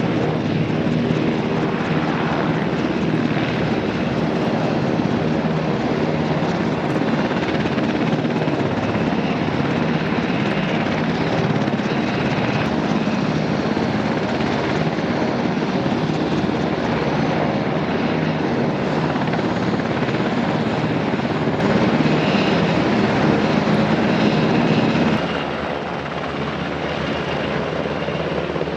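Helicopter running steadily, the rotor beat and engine whine continuous; it becomes a little quieter about 25 seconds in.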